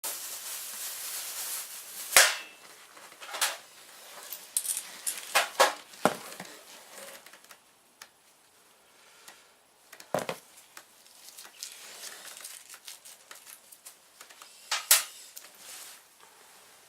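Scattered clicks, clinks and knocks of hand tools and metal parts being handled during motorcycle engine work, the sharpest about two seconds in and again near the end, with a steady hiss during the first two seconds.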